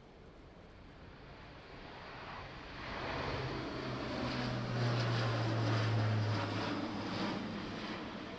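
Airbus A400M's four TP400 turboprops at take-off power as it climbs past close by. The propeller drone swells to a loud peak, its low tone drops in pitch as the aircraft passes, and it then fades.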